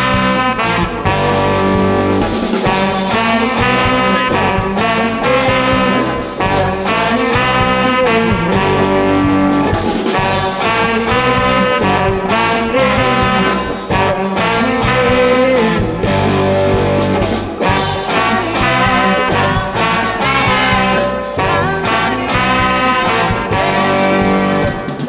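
Live band playing, with alto saxophone, electric guitar, bass guitar, keyboard and drum kit.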